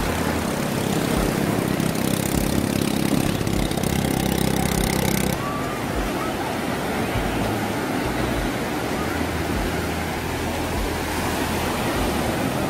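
Sea surf washing in over the shore, a steady rush, with a low rumble of wind on the microphone. The hiss drops abruptly about five seconds in, and the rush carries on a little quieter.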